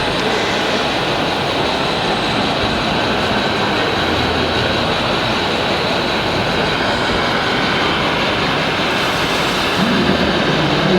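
Steady mechanical whirring and rumbling of radio-controlled model construction machines running, the electric drives and gearing of RC diggers and trucks at work.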